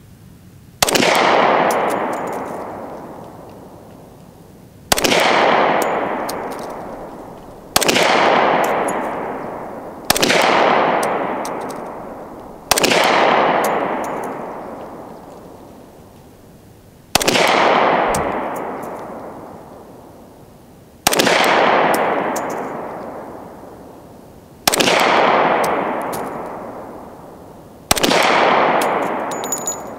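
Glock 20 10mm pistol firing hand-loaded, cast-lead, Lee Liquid Alox-lubricated bullets through an Alpha Wolf aftermarket barrel. There are nine single shots, unevenly spaced a few seconds apart, each followed by a long fading echo.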